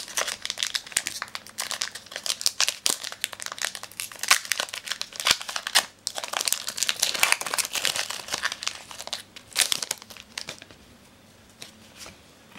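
Pokémon trading-card booster pack's foil wrapper crinkling and tearing as it is opened by hand, in dense irregular crackles. The crinkling dies down about ten seconds in, leaving a few faint ticks.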